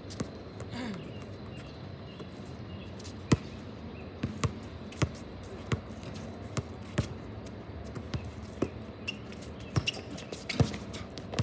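Basketball being dribbled on an outdoor hard court: a string of sharp single bounces, roughly one to two a second, the loudest a little after three seconds in.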